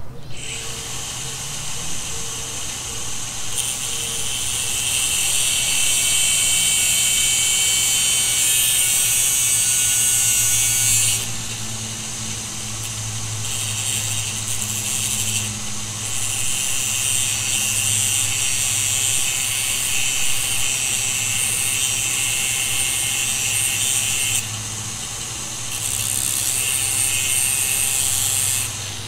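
Angle grinder cutting through the end of a bolt so its nuts can be removed, a loud steady grinding whine that eases off twice for a second or two as the cut goes on.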